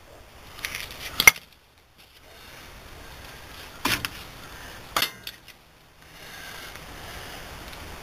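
Metal clinks and rattles of steel-backed brake pads being handled and pulled from the caliper bracket of a 1999 Ford F-250 Super Duty's front brake: a sharp clink about a second in, then two more around four and five seconds.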